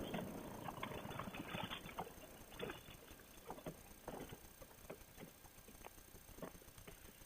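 Irregular light clicks and knocks, several close together at first and then thinning out to single taps.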